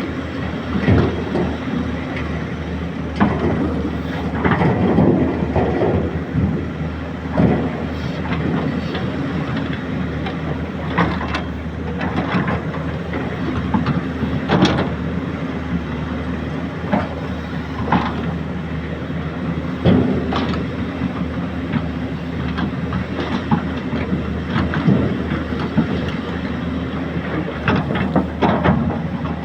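Excavator engine running steadily under irregular clanks and knocks from the machine working, one every second or two.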